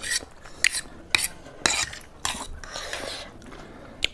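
Eating utensils tapping and scraping against a bowl as noodles are stirred: about five sharp clicks in the first two seconds, then a longer scrape around three seconds in.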